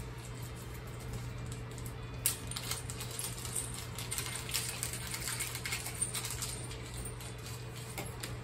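Small clicks and clinks of fan-mounting bolts and nuts being handled in the fingers, more frequent from about two seconds in, over a steady low hum.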